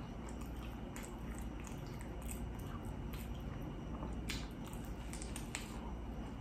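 Close-miked eating: chewing with scattered short mouth clicks and smacks, over a steady low hum.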